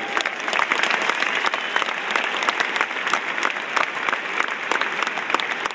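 Large stadium crowd applauding, with sharp claps from people close by standing out over a dense wash of clapping.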